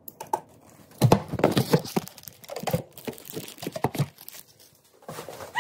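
Close rustling and crinkling handling noise as the phone is picked up and moved, with cloth and fingers rubbing right at the microphone. It is a quick run of crackles and rubs starting about a second in and lasting about three seconds.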